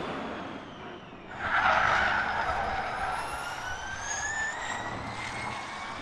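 Electric motor whine of a Maserati MSG Racing Gen3 Formula E car. It fades at first, comes up loudly about a second and a half in, then rises steadily in pitch as the car gathers speed.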